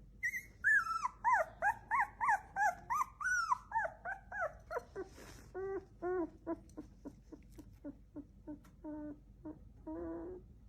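A dog whining in a quick run of short, pitched cries, about three a second. The cries are high and falling at first, then lower and shorter from about five seconds in.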